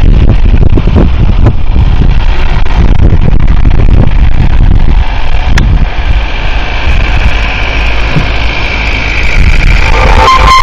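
Compact tractor with a front snow-plow blade running as it pushes through snow, its engine heard under heavy wind buffeting on the microphone.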